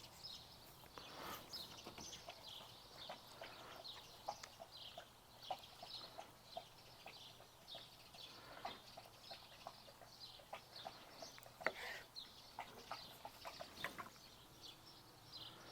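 Quiet background with faint, quick bird chirps repeating throughout, and a few soft taps.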